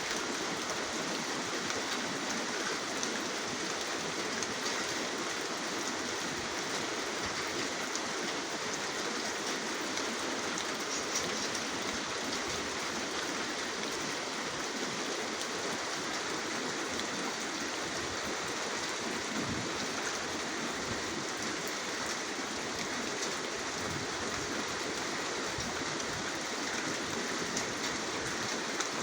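Steady rain falling, an even patter of drops without pause.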